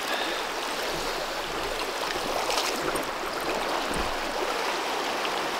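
A fast river rushing steadily over a choppy riffle.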